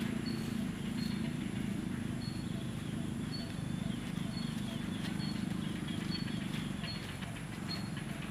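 Outdoor ambience: a steady low hum under a short high chirp that repeats about once a second, with faint scattered ticks and rustles of dry leaf litter.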